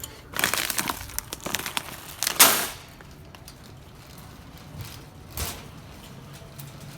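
Crinkling, crunching handling noise: a run of rustles and cracks over about two seconds, loudest near the end of that run, then two short, softer ones.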